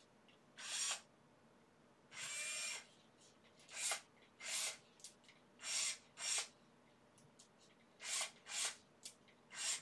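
Bosch IXO VI cordless electric screwdriver's motor spun up in about nine short bursts, one of them longer, around two seconds in, and the rest about half a second each with short pauses between.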